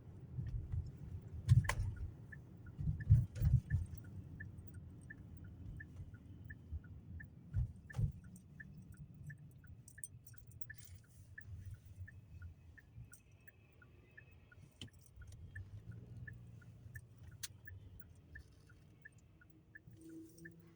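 Car turn-signal indicator clicking steadily, about two and a half clicks a second, over a low rumble. A few louder knocks and thumps come in the first few seconds and again about eight seconds in.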